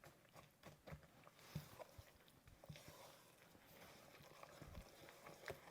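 Near silence with a few faint, scattered clicks and knocks.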